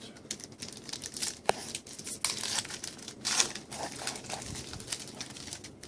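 Crinkling and tearing of a trading-card pack's wrapper as it is opened and the cards are handled, in a run of irregular crackles.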